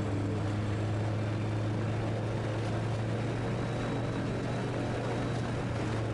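Just Aircraft SuperSTOL XL's engine and propeller running steadily at ground idle, heard from inside the cabin as a constant low drone with no change in speed.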